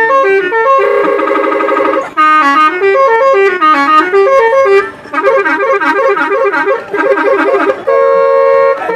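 Truck's telolet multi-tone musical horn playing a loud tune: notes stepping up and down, a fast warbling alternation between two notes in the second half, then one steady held chord near the end.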